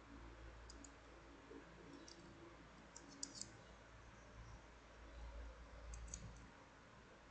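Faint, light clicks of metal wire puzzle pieces knocking together as they are handled, coming in a few small clusters; the loudest cluster comes a little past three seconds in.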